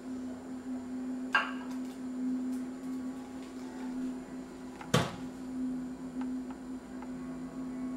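Steady low hum with two sharp clinks, about a second and a half in and a louder one about five seconds in: a metal inoculation loop tapping glassware as it is loaded with yeasty beer and brought to an agar plate.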